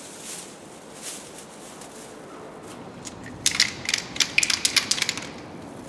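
Aerosol can of anti-gravel (stone-chip) coating being shaken, its mixing ball rattling in a quick run of sharp clicks for about two seconds, starting about halfway through.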